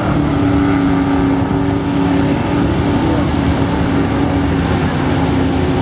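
Offshore racing powerboat running flat out past the shore, its engines a steady drone over a dense rushing noise.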